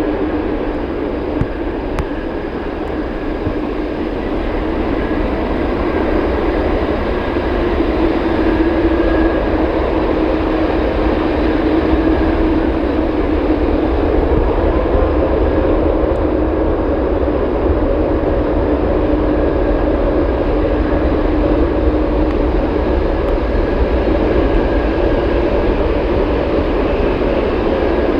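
Boeing 787-9 airliner's jet engines running, a steady loud drone with several whining tones; one tone rises in pitch about a third of the way through.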